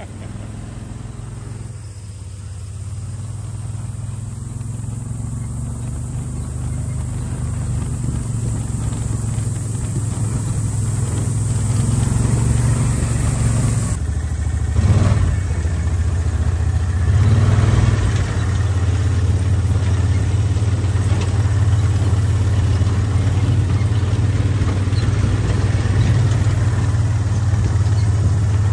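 A vehicle engine running with a steady low hum, growing gradually louder through the first half. After a cut about halfway through it runs on steadily.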